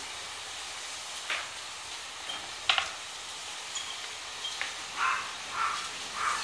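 Grooming scissors snipping at dog fur a few times over a steady hiss. The sharpest snip comes a little under three seconds in, and a run of softer short sounds follows near the end.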